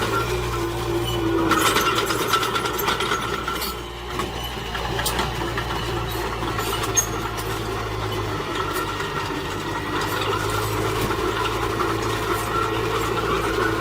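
Diesel engine of heavy earthmoving machinery running steadily under load, with scattered metallic clanks and knocks. The sound eases briefly about four seconds in.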